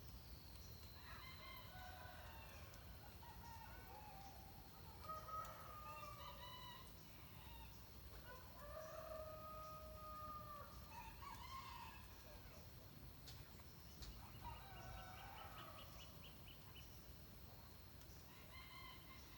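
Faint rooster crowing, repeated about six times, each crow lasting a second or two, over a low steady background.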